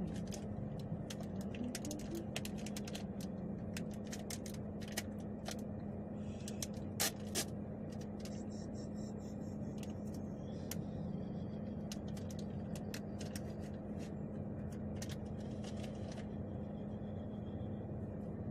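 Steady low hum of a car cabin with the vehicle running, with scattered light clicks and taps throughout, a sharper double click about seven seconds in, and a soft hiss around eight to ten seconds in.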